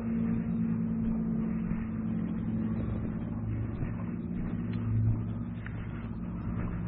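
A steady low mechanical hum made of several held tones, like a motor running, swelling briefly about five seconds in.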